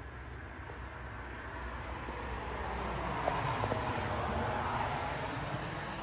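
A vehicle passing by: an even noise with a low rumble that swells over the first few seconds, peaks about halfway, then fades.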